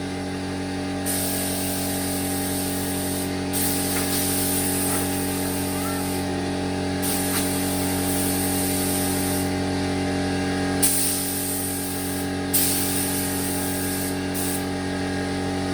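Compressed air blasting from an air compressor's blow gun in about six hissing bursts of one to three seconds each. Underneath, the compressor's motor runs with a steady hum.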